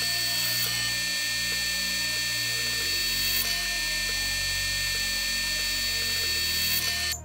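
Drill press running, its twist drill boring through a machined metal hub flange: a steady whine over a constant cutting hiss that cuts off abruptly near the end.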